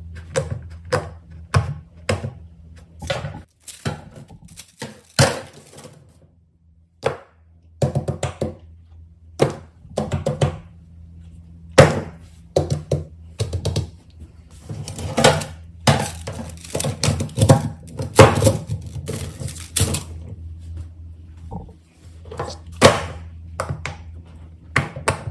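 Fidget toys being handled, pressed and set down on a hard surface: irregular clicks, taps and thunks, coming thickest in a flurry past the middle, over a steady low hum.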